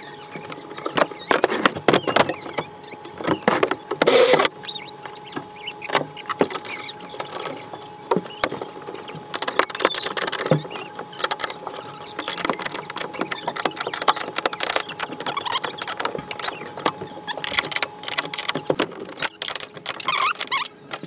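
Irregular clattering, knocking, scraping and rustling of hands and hardware working in a plastic ice-shanty sled right at the microphone. The loudest stretch comes about four seconds in, and a faint steady hum runs underneath.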